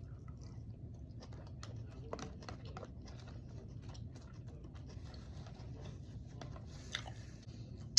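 Faint eating noises: scattered small clicks and taps over a low steady hum, with one sharper tick about seven seconds in.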